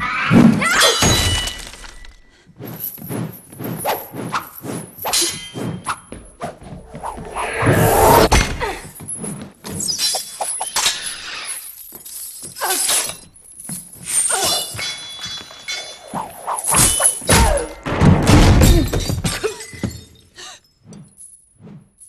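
Movie fight sound effects: a steel ball on a chain whirling and slamming into wood and furniture, with chain rattle, sword clangs and crashes of breaking tables and dishes. A long run of heavy thuds and smashes, some ringing like metal, heaviest at the start, around eight seconds in and again near the end.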